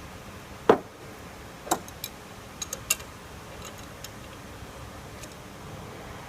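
Metal parts of a waterjet cutting head's on/off valve and the tools on them clicking and knocking as the valve is taken apart: a handful of sharp, separate clicks, the loudest less than a second in and the rest spread over the next few seconds.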